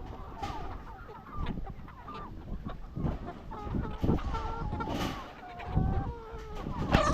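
A flock of chickens clucking and calling, many short overlapping calls, some sliding in pitch, over low rumbling thumps.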